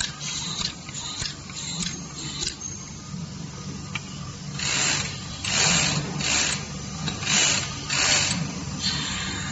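Semi-automatic capsule filling machine running with a steady low hum, its capsule-loading head clicking about every 0.6 s as it drops empty capsules into the ring plate. From about halfway, a hand rubbing across the capsule ring plate makes a run of five loud scraping rustles.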